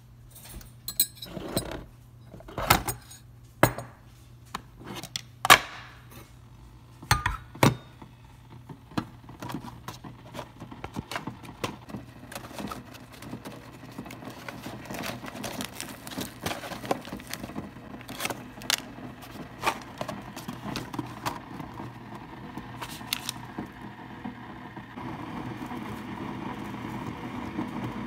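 Handling sounds at a single-serve pod brewer: sharp clicks and knocks in the first eight seconds, then a run of lighter taps, clinks and crinkles as a tea bag is taken from its packet and a steel tumbler is set in place, over a low steady hum. About 25 seconds in a steadier noise comes in.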